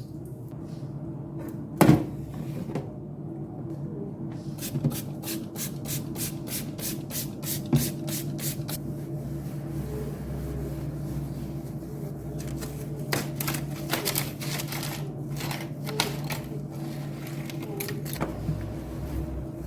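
Handling and cleaning sounds from a refrigerator clean-out: a sharp knock about two seconds in, then a run of quick clicks, about five a second, and later scattered taps, over a steady low hum.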